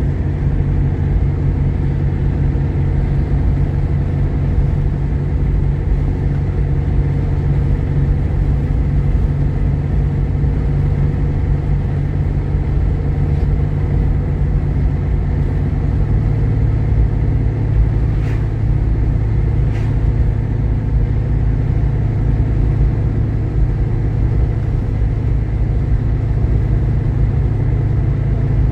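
Steady low drone of a Jeep Grand Cherokee's 3.7 L V6 and its road noise, heard from inside the cabin while driving. The drone shifts slightly in pitch about halfway through, and two faint ticks come a couple of seconds apart later on.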